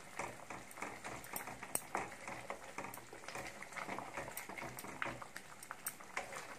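Thick curry gravy bubbling in a kadai, with irregular soft pops and clicks as a spoon stirs through it and scrapes the pan.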